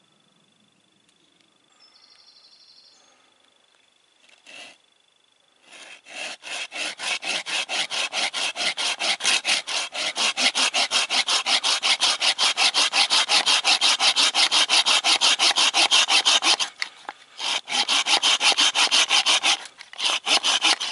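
Small hand saw cutting through a wooden block in fast, even push-pull strokes, trimming waste wood off a hollowed sheath blank. The sawing starts about six seconds in, breaks off briefly near the end, then picks up again.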